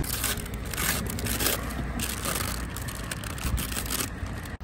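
Brown paper bag crinkling and rustling in several bursts as hands unfold it from around a toasted pastry.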